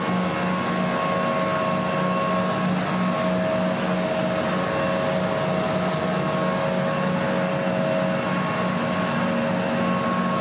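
Steady drone of flight-line machinery around a parked jet aircraft: a low hum with a few steady higher whines over a constant rushing noise.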